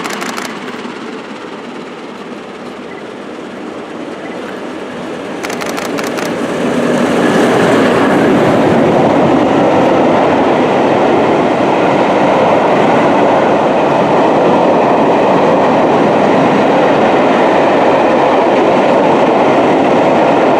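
A train passing close by: wheel-on-rail noise builds over the first several seconds, with a short run of sharp clicks, then holds as a steady loud rumble with clickety-clack as the carriages go past.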